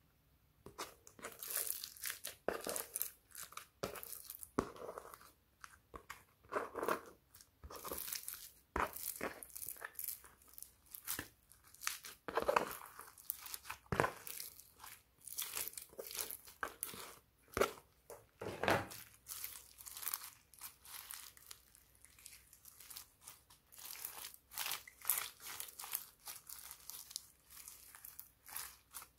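Slime being pressed and worked by hand, making a dense, irregular run of crackling, crinkly squishes and crunches.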